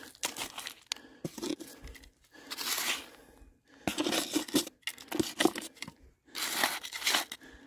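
A hand scoop digging into dry, stony soil: a series of scraping, crunching strokes about a second apart.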